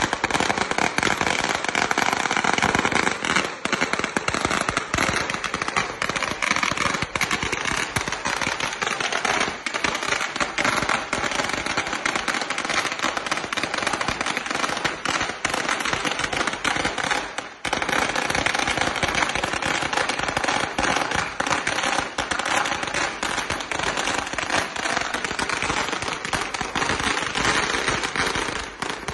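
Firecrackers going off in a dense, continuous rapid crackle of pops, with a short lull about two-thirds of the way through.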